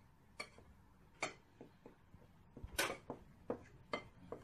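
A few separate light clicks and knocks of kitchenware being handled, the loudest with a dull thump a little before three seconds in.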